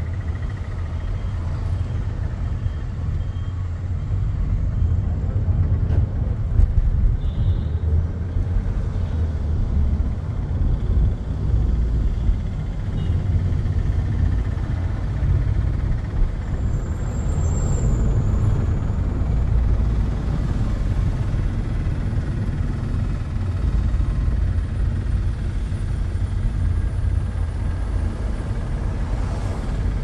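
Cabin sound of a Volkswagen Taigun GT's 1.5 TSI turbocharged four-cylinder petrol engine on its stock exhaust while driving, heard as a steady low rumble together with tyre and road noise. A brief high note sounds about halfway through.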